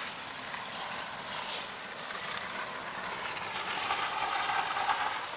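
A road vehicle passing or approaching on the street, its engine and tyre noise growing louder over the last couple of seconds.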